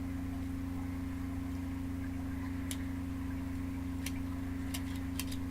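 A steady low electrical hum, with a few sharp plastic clicks in the second half as a Transformers toy's Mech Tech weapon accessory is worked by hand and pops in and out.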